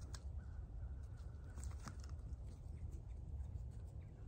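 Faint rustling of cauliflower leaves and a few sharp snaps as the plants are handled and pulled, over a steady low rumble.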